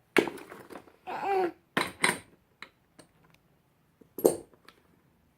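A few scattered knocks and clatters of hand tools against a scooter, with a short wordless child's vocal sound between them.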